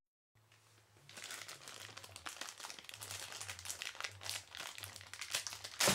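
Clear plastic bag crinkling in the hands, with a USB cable inside it, starting about a second in as a quick run of small crackles, with one louder crinkle near the end.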